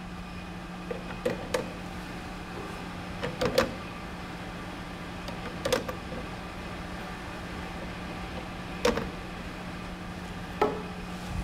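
Small glass sample vials clinking as they are picked up and set into the autosampler tray of a total organic carbon analyzer: a scatter of light clicks a few seconds apart, over a steady low hum.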